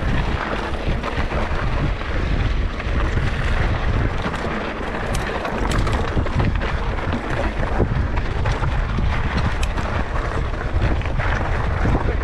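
Mountain bike riding down a rocky trail: a steady low rumble of tyres and wind buffeting the action camera's microphone, with scattered sharp clicks and rattles from stones and the bike.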